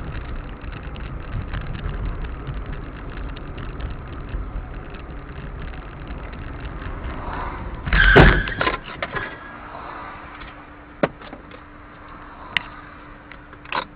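Car interior road and engine noise while driving in traffic, then a sudden loud crunching impact about eight seconds in: a low-speed rear-end collision with the vehicle ahead. Afterwards comes a steady low hum and a few sharp clicks.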